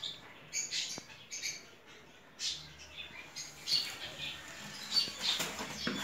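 Birds chirping in short, irregular calls, with light knocks and rustles of a plastic bulb holder being handled on a plastic TV casing near the end.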